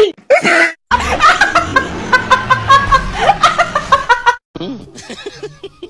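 Women laughing, a long run of quick, rhythmic laughs that dies down about four and a half seconds in.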